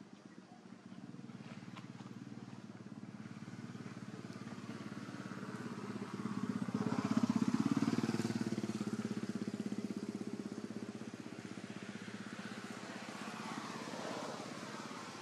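A motorcycle engine running, growing louder to a peak about halfway through and then slowly fading.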